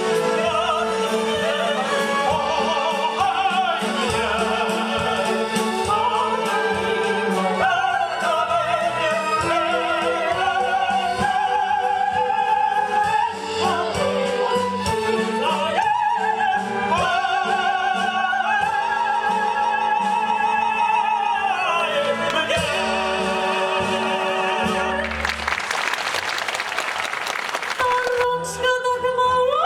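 Operetta duet: a tenor and a soprano singing with vibrato over a symphony orchestra with strings, the number closing about 22 seconds in. About three seconds of applause follow near the end, before the orchestra starts again.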